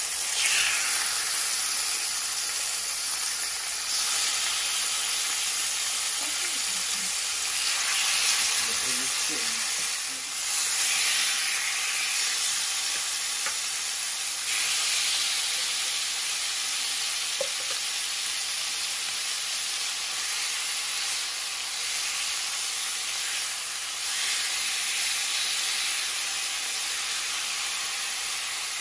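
Boneless chicken thighs sizzling in hot olive oil in a cast iron pan. The sizzle is a steady hiss that swells several times as more pieces are laid into the oil.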